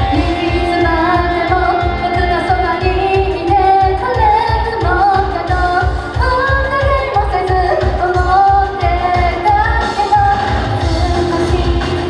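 Idol pop song played loud through a hall's sound system, with a steady fast thumping beat and female singing.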